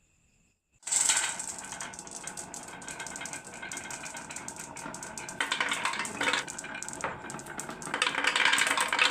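Marbles rolling and clattering down a wooden HABA marble run: a sudden start about a second in, then a dense, continuous rattle of clicks that gets louder near the end.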